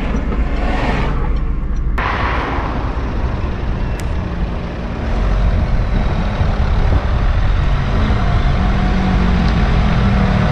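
Road vehicle noise: a steady low rumble, with a vehicle swelling past in the first two seconds.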